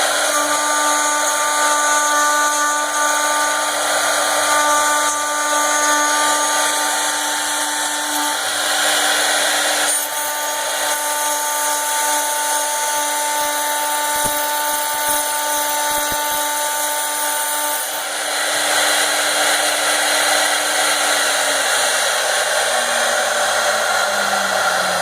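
CNC router spindle running and cutting, a steady whine over a hiss of cutting noise. A higher whine drops out briefly about eight seconds in and stops about eighteen seconds in. Near the end the low tone falls in pitch as the spindle slows down.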